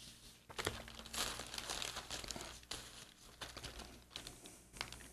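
Faint crinkling of a plastic zip-top bag as metal tongs pull flour-coated chicken breasts out of it and shake off the excess flour, with scattered small clicks.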